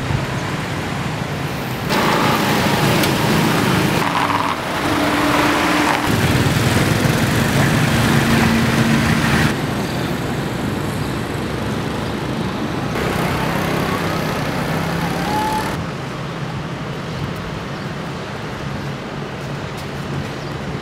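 Street traffic ambience: cars and other vehicles running and passing on city roads, a steady hum that changes abruptly several times as the shots cut.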